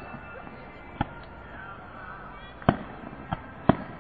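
Fireworks bursting: several sharp bangs at uneven intervals, the loudest near the end, with music playing faintly underneath.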